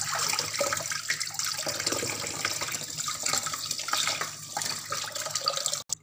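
Kitchen tap running into a stainless steel sink, the water splashing over hands as they scrub a crab clean. The sound cuts off abruptly near the end.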